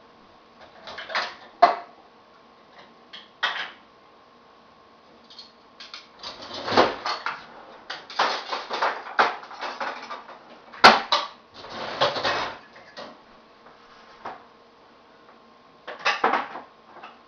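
Dishes and cutlery clinking and clattering in irregular bursts as a dishwasher is unloaded and things are put away into a drawer and cupboards. There is a busy stretch in the middle with one sharp knock.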